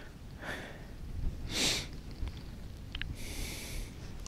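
A man breathing and sniffing through his nose close to the microphone: a faint breath early, a sharp sniff about a second and a half in, and a longer sniff near the end, with a tiny click just before it.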